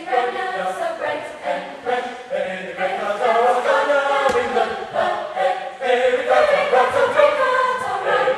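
Mixed chorus of high-school voices singing in harmony, holding chords, louder from about three seconds in.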